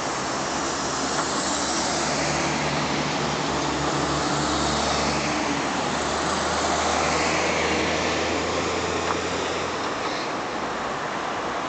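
Steady road traffic noise: vehicles passing and swelling in and out, with a low engine hum that stops about ten seconds in.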